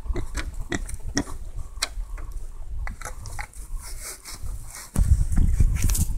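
Wild boars, an adult and a striped piglet, making a run of short sharp clicks and crunches as they root and feed. A louder low rumbling noise comes in about five seconds in.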